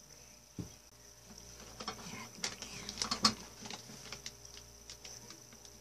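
Light clicks and taps of paint bottles and cups being handled on a work table, bunched into a cluster of sharp clicks about halfway through, over a faint steady high whine.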